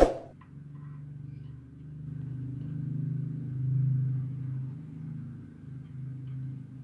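A sharp click right at the start, then a low steady engine hum, like a motor vehicle, that swells about three to four seconds in and eases off again.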